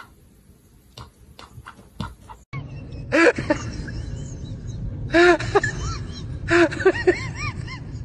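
Three bursts of short, high, rising-and-falling squeaks from a small animal over a steady low background noise, after a few faint clicks at the start.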